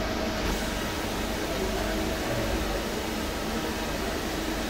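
Hanwha XP12S Swiss-type CNC lathe running: a steady machine hum with faint steady tones and an even hiss, which grows brighter about half a second in.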